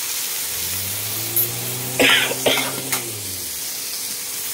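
Spiced okra and tomatoes sizzling in cow ghee in a hot pan, a steady hiss. About two seconds in, a person clears their throat and coughs twice in quick succession.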